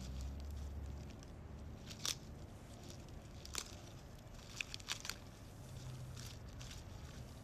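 Crumpled paper being handled and unfolded by hand, with a few sharp crinkles about two, three and a half and five seconds in.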